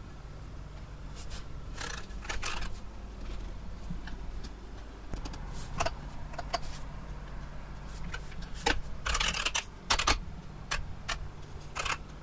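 Scattered light clicks and taps from hands working a smartphone and the desk's keyboard and mouse, irregularly spaced with a denser cluster about nine seconds in, over a low steady hum.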